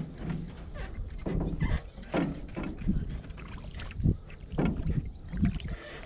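Irregular splashing and sloshing of water against a small canoe, with dull knocks, as a hooked giant snakehead fights close alongside and a wooden paddle works in the water.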